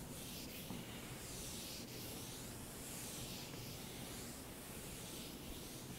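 Chalkboard eraser rubbing across a chalkboard in repeated strokes, a faint hissing rub, wiping off chalk writing.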